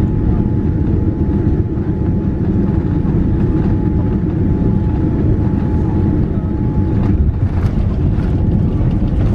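Cabin noise of a Boeing 787-9 rolling on the ground after landing: a steady low rumble of engines and airframe. A faint steady whine runs under it and stops about seven seconds in, and a few light rattles follow.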